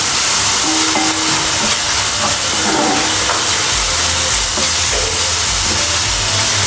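Food sizzling and hissing steadily in a hot pan, with a low rumble joining about halfway through.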